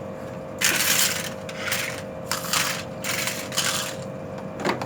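Clattering, scraping handling noise of objects being picked up and moved, in about five irregular bursts over a few seconds.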